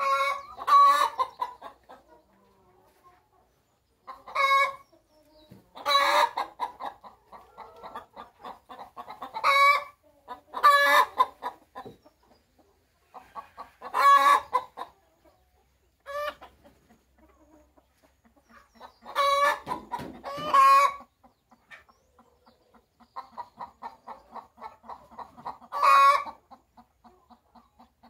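Hens cackling in a henhouse: fast runs of quiet clucks, each breaking into a loud squawk, about ten squawks in all. This is the pattern of the hen's egg song given around laying.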